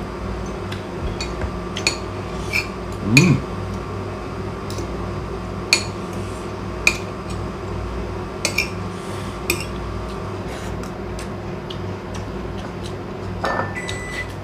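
Scattered light clinks and taps of tableware against plates and a bowl, about a dozen in all and loudest about three seconds in, over a steady background hum.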